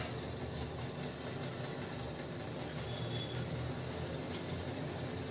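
Steady low rushing hiss of a covered steel idli steamer on the stove, its water boiling as the batter steams, with a faint tick about four seconds in.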